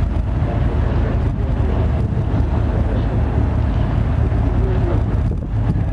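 Wind buffeting the microphone over the steady low rumble of a river cruise motor ship moving past close by.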